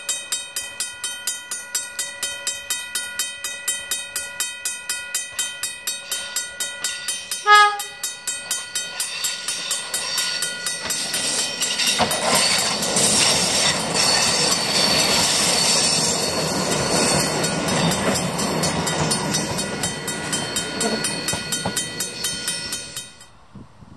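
A rapid ringing at about four strokes a second, broken about a third of the way in by a short toot of the horn of an English Electric electric multiple unit. The train then approaches and passes close by with a loud rush of wheels on rail, which cuts off just before the end.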